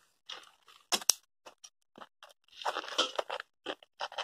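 Wood fire of dry sticks and twigs crackling in a metal fire-pit bowl: scattered sharp pops and snaps, with a denser run of crackles about three seconds in.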